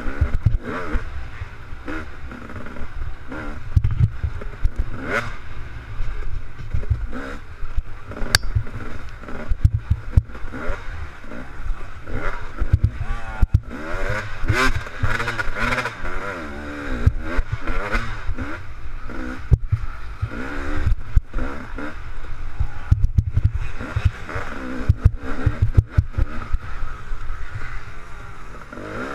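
Two-stroke KTM 250 XC dirt bike engine being raced, its pitch rising and falling sharply as the throttle is worked on and off through the corners and jumps, with frequent knocks and rattles from the bike over rough ground.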